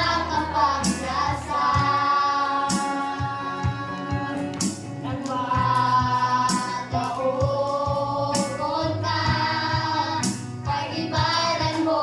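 A group of voices singing a worship song together in chorus, holding long notes.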